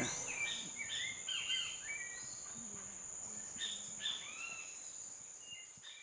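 Tropical forest ambience: a steady high-pitched insect drone with scattered bird calls, short rising and falling whistles, fading out near the end.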